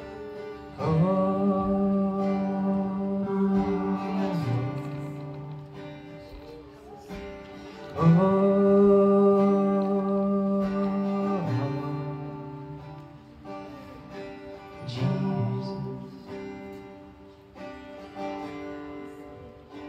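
Slow worship music: acoustic guitar under a voice singing long held notes, one starting about a second in and another about eight seconds in, each held for a few seconds.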